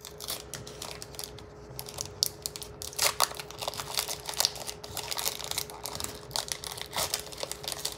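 Foil trading-card pack wrapper being torn open and crinkled by hand: irregular crackles and snaps, louder and busier from about three seconds in.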